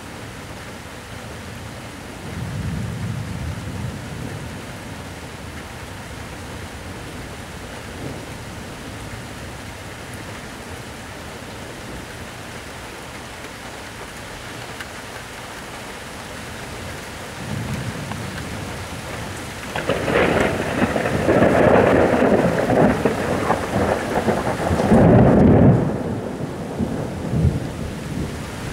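Thunderstorm: steady rain with rolling thunder. A low rumble comes a couple of seconds in, then from about twenty seconds a much louder crackling peal builds to its loudest crash near the end and dies away.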